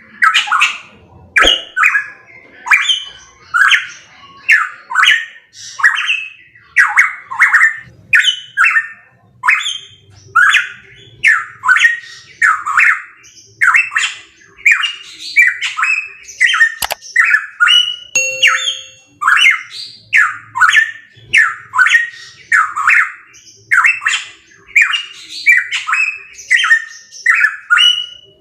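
Pitohui calling: a long unbroken series of short, harsh notes repeated about one and a half times a second.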